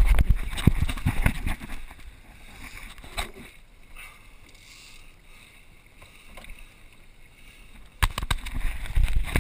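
Water splashing at the boat's side as a hooked marlin thrashes at the surface, with bursts of wind rumble on the microphone in the first second or so and again near the end; quieter water noise in between.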